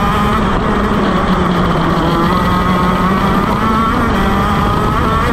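A KZ shifter kart's 125cc two-stroke engine at high revs, heard from on board, its pitch holding fairly steady with slight rises and dips.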